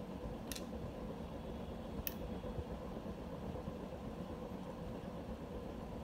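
Marelli 24/3 ceiling fan running at full speed, its motor and blades giving a steady whirring noise of moving air with a faint hum. Two short sharp clicks about half a second and two seconds in.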